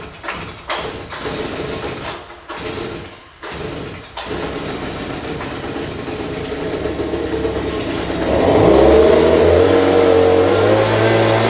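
Stihl BG 86 C leaf blower's two-stroke engine just after a cold start, running unevenly with brief dips for the first few seconds, then steadier. About eight seconds in it picks up to a louder, higher, steady speed.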